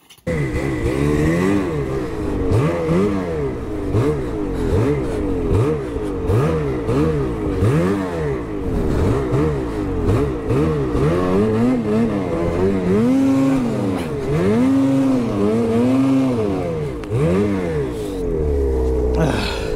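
Ski-Doo snowmobile's 850 two-stroke engine revving up and down about once a second as the sled is ridden, the throttle repeatedly opened and let off. Near the end it settles to a steadier pitch.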